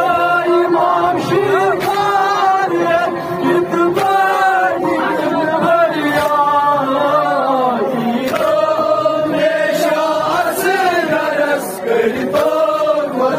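Male nauha reciters chanting a Shia lament into microphones, amplified through a horn loudspeaker, with the crowd chanting along. Steady slaps of hands beating chests (matam) keep the beat.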